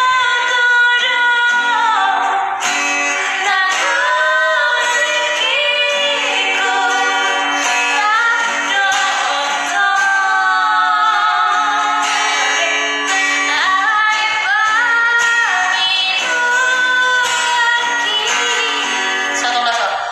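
A woman singing a slow song with long, gliding held notes, accompanied by her own strummed acoustic guitar.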